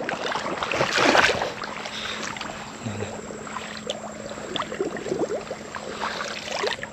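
Shallow water sloshing and splashing around feet stepping through a thin layer of water over soft mud, with a louder splash about a second in.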